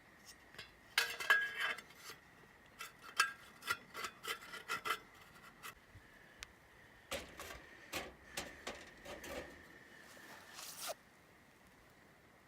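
Bursts of scraping and rubbing mixed with sharp clicks and knocks, in three clusters with quiet gaps between, over a faint steady high tone.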